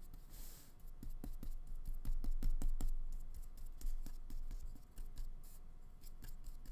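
A liner brush stroking and tapping on paper while the painting hand rubs and shifts on the sheet: an uneven run of light clicks and scratches with a few soft low thumps.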